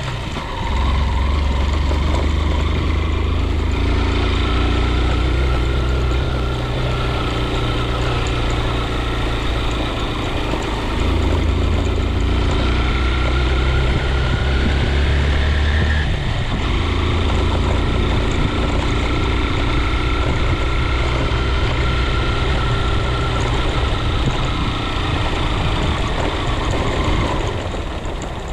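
Engine of a vehicle driving along a mountain road, running steadily with a low drone whose note shifts a couple of times.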